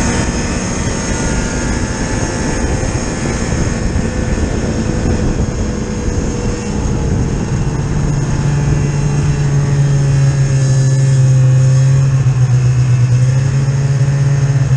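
Snowmobile engine running steadily under way, with the rush of travel over it. About halfway through a deeper, louder engine tone comes in and holds.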